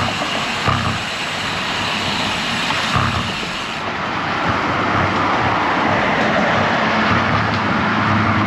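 Steady wind and road rush heard from a camera on a moving road bike, with motor traffic passing alongside.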